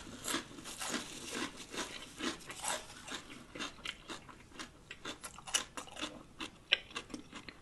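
A person chewing and biting crunchy food close to the microphone: irregular crisp crunches and wet mouth clicks, the loudest crunch right at the start.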